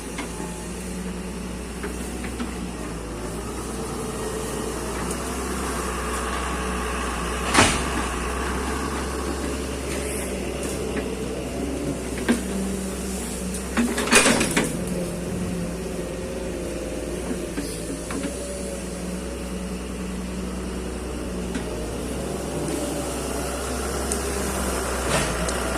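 Excavator engine running steadily, with two sharp knocks partway through.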